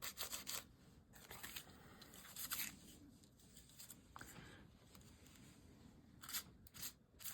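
Faint, intermittent rustling and crinkling of tissue paper being handled and laid onto a journal page, in short scrapes with quiet gaps between them.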